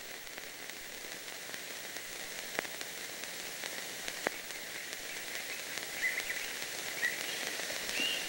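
Steady hiss of an old film soundtrack, with a few sharp clicks and crackles, under a scene without dialogue. Near the end there are a few faint, short high-pitched sounds.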